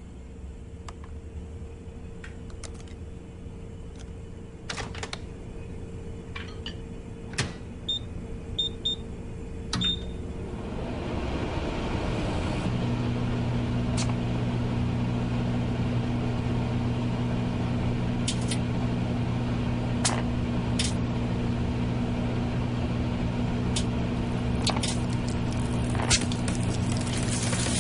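Microwave oven keypad beeping several times, then the oven starting up and running with a steady low hum, with scattered sharp clicks.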